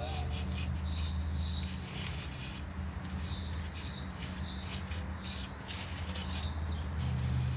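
A small bird chirping, about seven short high chirps at irregular intervals, over a steady low hum.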